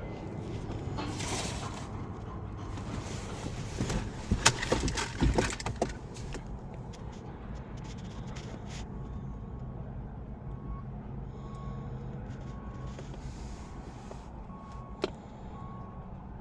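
A burst of sharp knocks and clicks, then a car's electronic warning chime repeating about once a second over a steady low hum.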